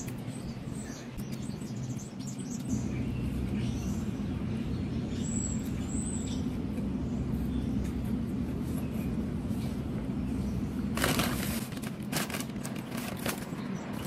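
Steady low hum with a few faint bird chirps. About eleven seconds in, a short run of crackling and rustling as the burger and its cardboard box are handled.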